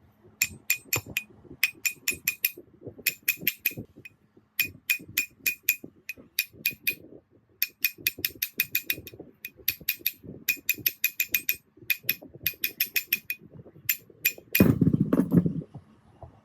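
A hammer striking a metal part in quick groups of three to seven blows, each hit ringing briefly at the same bright pitch. Near the end comes a louder, rougher burst about a second long.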